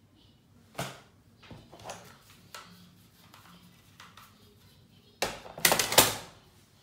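Makeup compacts and a brush being handled: a few light taps and clicks, then a louder clatter of hard plastic about five seconds in, lasting about a second.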